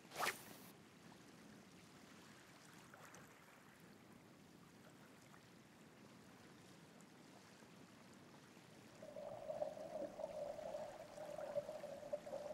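Faint lapping of water, with a short sharp sound right at the start. From about nine seconds in, a steadier wavering hum comes in and keeps going.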